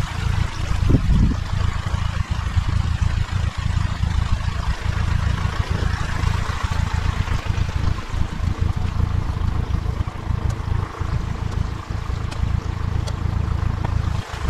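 8 hp diesel engine water pump running steadily, with water gushing and splashing from its outlet pipe.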